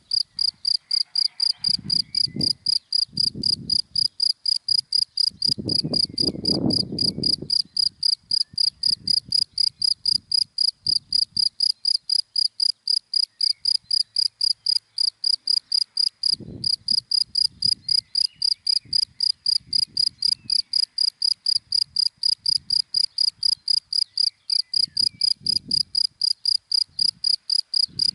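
A cricket chirping steadily in dry grass, short high chirps repeated evenly about three times a second. Low rumbles come and go underneath, the loudest about six seconds in.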